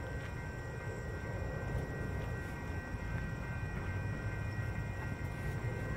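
Commuter train approaching from far down the line: a low, steady rumble.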